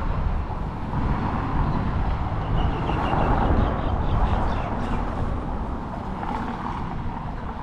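Outdoor street ambience: a steady low rumble of traffic mixed with wind buffeting the microphone, and a brief run of high chirps in the middle.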